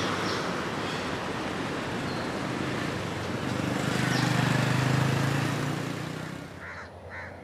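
Road traffic noise with a small motorcycle passing: its engine hum swells, is loudest about four to five seconds in, then fades away near the end.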